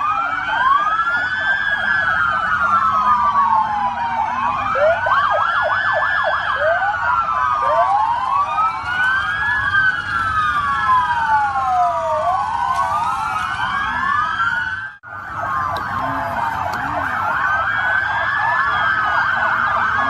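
Many police vehicle sirens wailing at once, their rising and falling tones overlapping and out of step with one another. The sound cuts out for an instant about fifteen seconds in.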